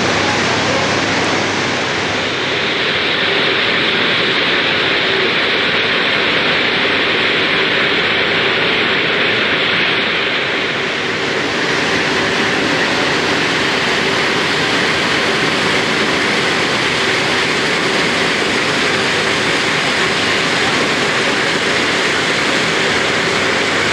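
Steady loud rushing noise of a coffee wet-processing plant: water pouring from a pipe into a tank of coffee cherries, with the processing machines running. The tone shifts about 2 and 11 seconds in.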